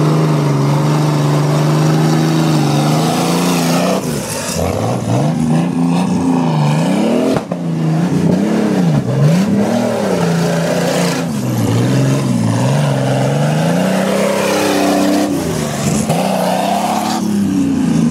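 Engine of a modified Jeep off-road trial truck, held at steady revs for about four seconds and then revved up and down over and over as the truck works through mud.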